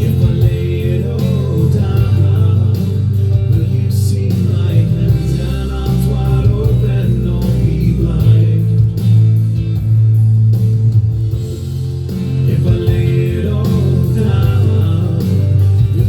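A recorded song playing: a singer with guitar over sustained low bass notes.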